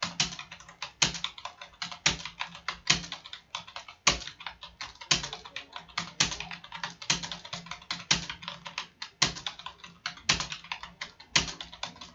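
Typing on a computer keyboard: fast runs of home-row keystrokes at a steady pace, with a heavier stroke about once a second.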